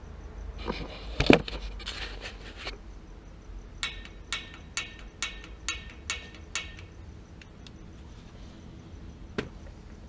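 A thump with some rustling, then a row of seven sharp clicks about half a second apart, and one more click later, from a water heater's gas control valve being worked by hand at its controls.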